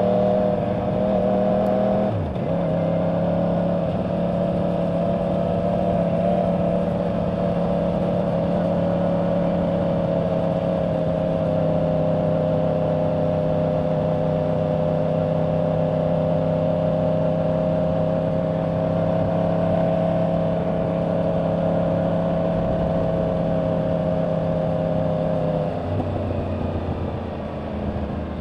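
2024 Yamaha R1's crossplane inline-four engine through its stock exhaust, running at steady cruising revs under way. A brief break in the note about two seconds in marks a quick gear change, and near the end the revs fall away as the bike slows.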